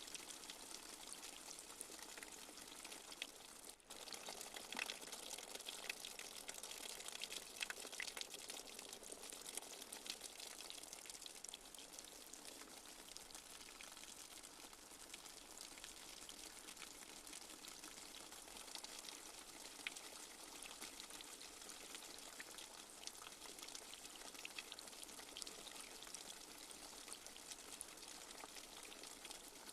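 Light rain falling steadily: an even hiss of rain with many small drop taps scattered through it, broken by a brief dropout about four seconds in.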